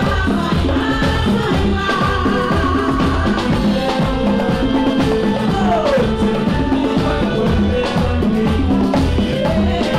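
Latin pop music played live by a stage band, with a steady dance beat, bongos and a woman singing.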